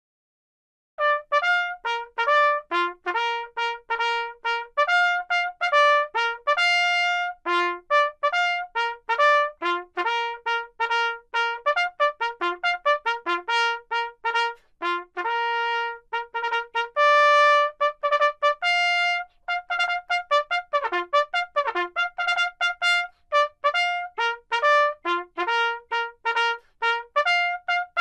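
Background music: a solo trumpet playing a quick melody of short, detached notes, starting about a second in.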